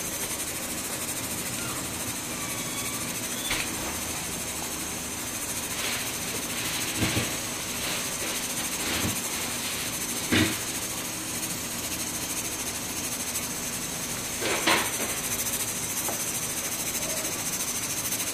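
Vegetables hissing steadily in a hot pan while a wooden spatula stirs them, knocking and scraping against the pan several times.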